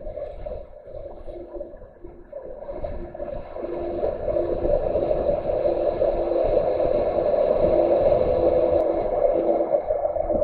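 Lorry cab engine and road noise, swelling from about three seconds in as another articulated lorry passes close alongside, with a faint broken hum running through it.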